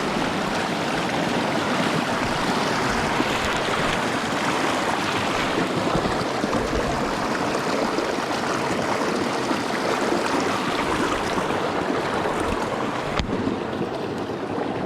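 Creek water rushing steadily over rocks, a constant even rush. A single sharp click comes near the end, after which the rush sounds slightly duller.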